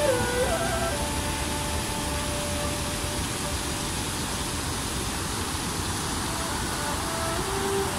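Floodwater pouring steadily over a low concrete weir and spillway, a constant rush of white water. Faint background music with long held notes plays over it, clearest in the first second and again near the end.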